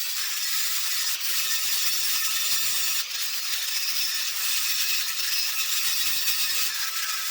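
Power grinder with a thick grinding disc grinding the steel of an old blacksmith's hammer: a steady, high hiss of disc on metal that eases briefly about one and three seconds in.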